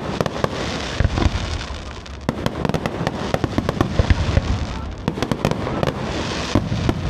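Aerial fireworks bursting: a dense run of sharp bangs and crackles over a continuous hiss.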